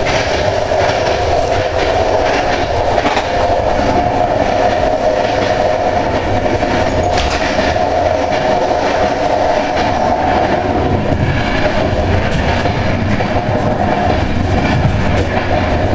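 Passenger coach of a EuroCity train running at speed, heard from inside: a steady rumble of the wheels on the rails with scattered clicks from the track.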